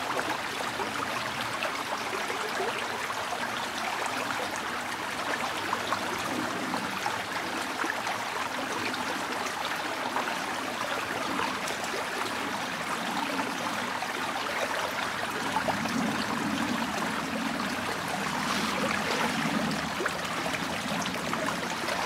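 A small, shallow creek's fast current running steadily, a continuous rush of moving water.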